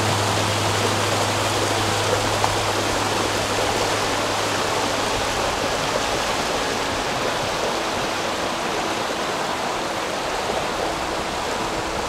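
Mountain stream water rushing steadily, an even unbroken rush. A low steady hum fades out about halfway through.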